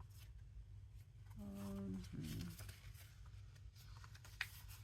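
Paper sheets being handled and laid down, with soft rustles and a few faint sharp ticks, the clearest near the end, over a low steady hum. A short murmur of voice comes about a second and a half in.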